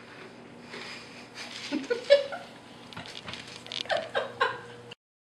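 A person laughing and giggling in short bursts, over light knocks and scuffs from a cat with a plastic cup stuck on its head bumping around a wooden floor.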